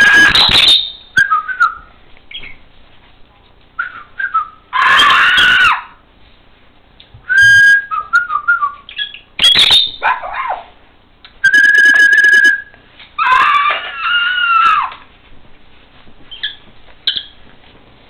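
A person imitating birds with loud whistles and squawks, close to the microphone, in calls about a second long a few seconds apart; one near the middle is a steady held whistle. Short, much softer chirps come between the calls.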